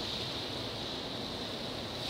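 Steady hiss of a water spray falling on a giant anteater and the wet concrete floor.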